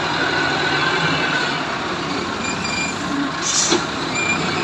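Wheel loader's diesel engine running steadily as the machine drives with its bucket raised, with a short burst of hiss about three and a half seconds in.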